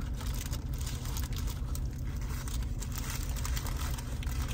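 Steady low rumble inside a pickup truck's cab with the engine idling, with faint crinkling of a paper food wrapper and chewing over it.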